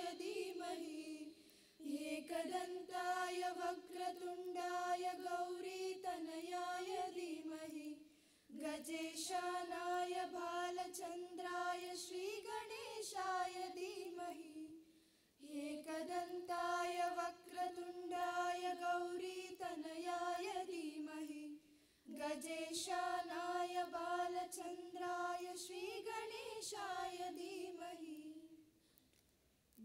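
A group of teenage girls singing a devotional invocation prayer in unison into microphones, with no instruments heard. They sing in long phrases of about six seconds, mostly holding one note and rising near the end of each, with short breath pauses between.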